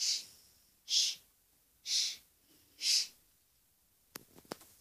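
A young girl shushing: four 'shh' sounds about a second apart, followed near the end by a few faint clicks.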